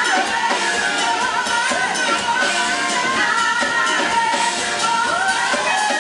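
Live soul-pop band with a horn section playing while several women sing together into microphones, a dense, continuous ensemble with little bass.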